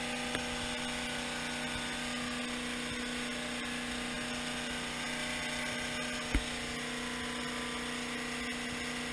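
Steady mechanical hum of a motor running on a bowfishing boat, with one sharp knock about six seconds in.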